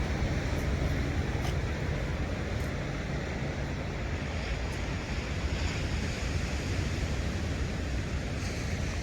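Sea surf washing in steadily, with wind rumbling on the microphone.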